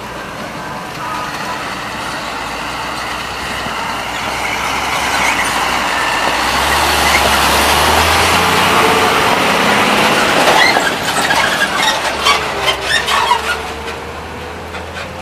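Road traffic with a diesel lorry engine running close by. Its low steady hum grows to its loudest about halfway through, and a run of sharp knocks and clicks follows near the end.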